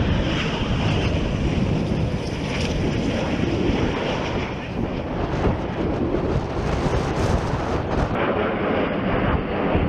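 Jet engines of Eurofighter Typhoon fighters running at full takeoff power as they lift off the runway: a loud, continuous rush of noise with a heavy low rumble.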